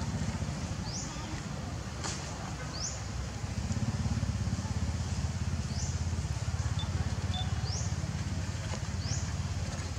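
Outdoor ambience: a steady low rumble, a little louder from about a third of the way in. Five short, high, rising chirps sound over it, spaced one to three seconds apart.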